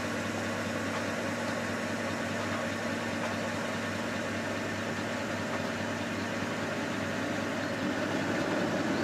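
Vehicle engine idling steadily, a low even hum.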